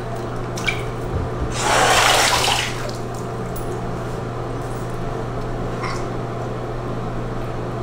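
Bathwater in a bathtub splashing and pouring for about a second, about two seconds in, with a few light splashes after, over a steady low hum.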